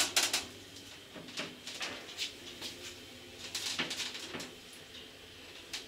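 Old Zremb passenger lift car running in its shaft: a faint low hum with scattered clicks and knocks, and a short cluster of rattles near the middle.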